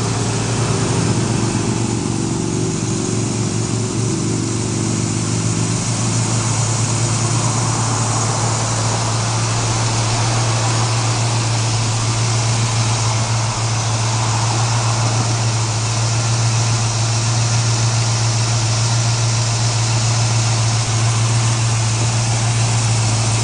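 A 1973 Chevrolet Camaro's original 350 small-block V8 with a two-barrel carburettor idling steadily, a constant low hum with no revving.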